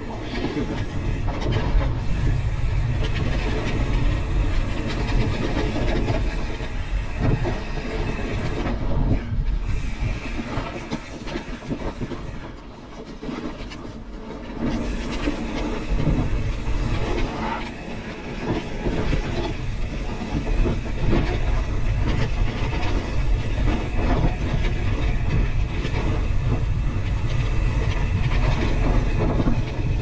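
Pivot Switchblade full-suspension mountain bike descending a dirt trail at speed: a constant rattling and rumbling of the bike and tyres over the ground, mixed with rushing wind on the microphone. It eases off for a few seconds about halfway, then picks up again.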